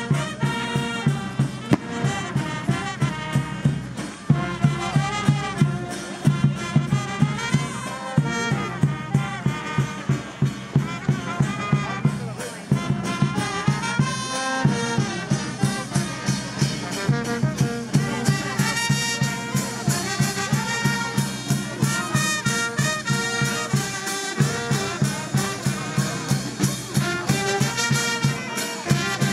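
Brass band playing a lively tune, with trumpets and trombones over a steady, regular drum beat.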